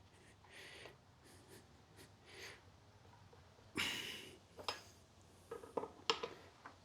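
Tyre levers and hands working a motorcycle tyre bead over a spoked wheel's rim: short rubbing scrapes, then a sudden louder scrape about four seconds in, followed by several sharp metallic clicks and knocks.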